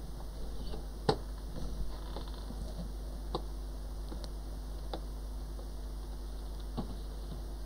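A handful of light, scattered clicks and taps from small hand tools working on a phone circuit board, the sharpest about a second in, over a steady low hum.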